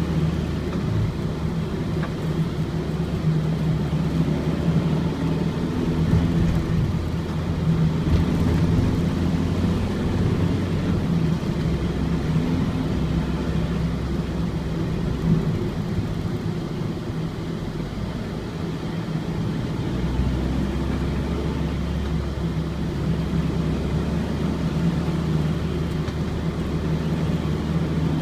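Ford Transit's four-cylinder diesel engine running under way with road noise, heard on board. The low engine note shifts a couple of times as the revs change.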